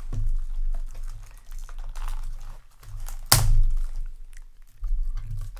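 Booster display box being handled and worked open: crinkling of its wrapping, a run of small clicks and low handling bumps, and one sharp, loud crack a little over three seconds in.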